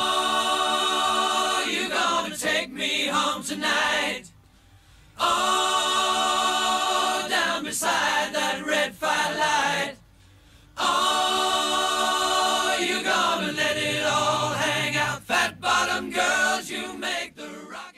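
Music: a group of voices singing held chords, a cappella or choir-like, in phrases of about five seconds, stopping briefly twice.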